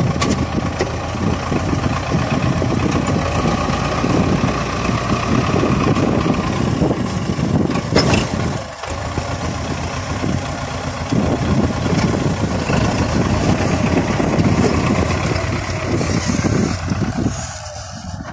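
Belarus MTZ-50 tractor's four-cylinder diesel engine running steadily while its front loader tips a bucket of soil, with one sharp knock about halfway through.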